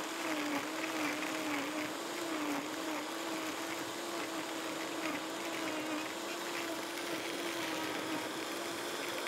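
Vitamix A3500 blender with an Aer Disc container running, churning strawberries, mint, lime slices and ice. Its motor hum wavers in pitch for the first couple of seconds as the load shifts, then holds steady.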